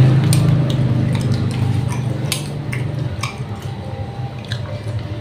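Metal spoon clinking now and then against a bowl of soup and noodles, with wet chewing sounds. A low rumble fades away over the first few seconds.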